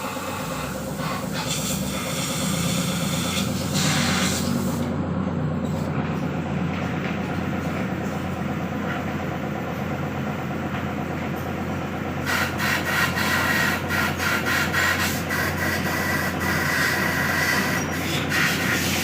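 Steady low mechanical hum under a hissing noise while an excavator control valve is washed. From about two-thirds of the way in, a run of short rasping scrubbing or spraying strokes joins it.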